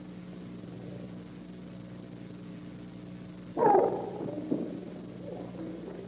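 A karate practitioner's short, sharp shout (kiai) about three and a half seconds in, over a steady low hum on the old soundtrack.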